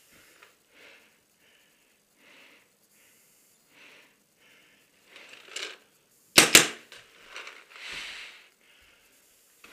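A person breathing hard in a small wooden room, with two sharp paintball shots in quick succession about two-thirds of the way through.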